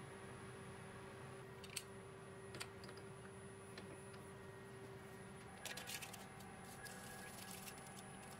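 Quiet workshop hum with a few light clicks as a small steel plate is handled and seated in a machine vise. About six seconds in comes a crackly stretch of paper rustling as a sheet of paper is held under the drill bit.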